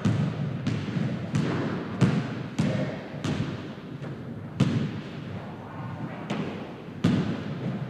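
Basketball bouncing on a hard floor: about nine dull bounces, unevenly spaced, each with a short ringing after it.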